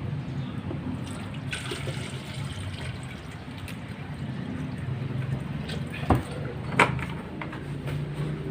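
Water being poured into an electric water heater to test it after repair, with two sharp knocks near the end.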